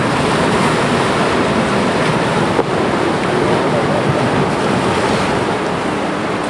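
Waves washing against the shore with wind buffeting the microphone, a steady loud rush without any horn or engine tone standing out.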